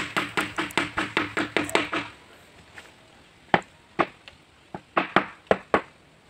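Hammer driving 2-inch nails into the wooden planks of a boat hull: a quick run of about five blows a second, each with a short ring, that stops about two seconds in. After a pause, a few slower single blows follow.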